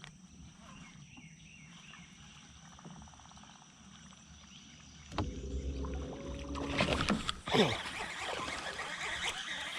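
Faint outdoor quiet, then from about five seconds in water splashing and churning, louder near the end, as a bass hooked on a topwater lure thrashes at the surface.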